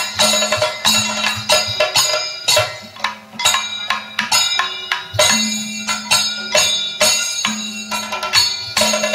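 Kathakali dance accompaniment music: percussion strikes with ringing metallic overtones over a held drone tone, easing briefly about three seconds in.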